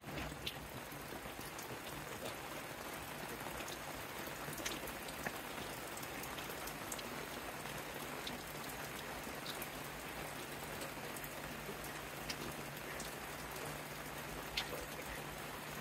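Steady rain falling: an even hiss with scattered louder drops ticking.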